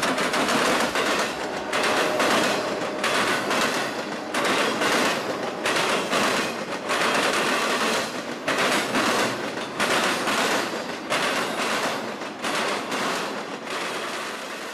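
Norfolk Southern intermodal freight train rolling past close by, its flatcars carrying highway trailers and containers: steel wheels clattering and clacking on the rails amid a steady rumble, the loudness swelling and dipping about once a second as the cars go by.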